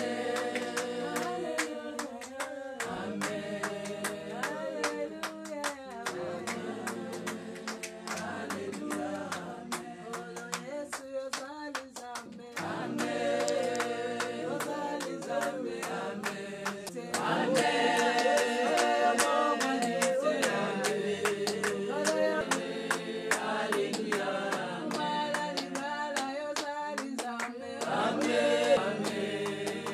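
A group of women singing together without accompaniment, with hand claps keeping time. The singing grows louder about two-thirds of the way through.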